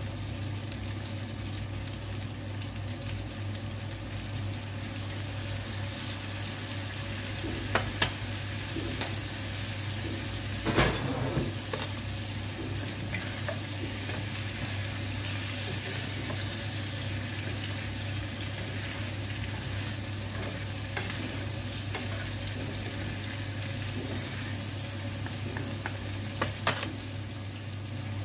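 Chicken and potato chunks sizzling steadily in a hot frying pan as they are stirred, with a spoon knocking against the pan three times. A steady low hum runs underneath.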